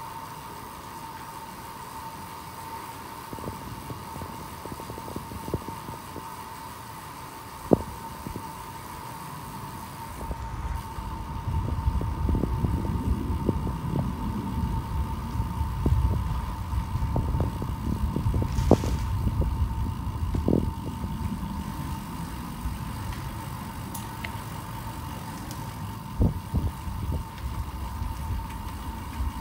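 Ride-along audio from a moving bicycle: a low hiss with a steady high hum. About a third of the way in, wind starts buffeting the microphone with a loud low rumble, and a few sharp knocks cut through.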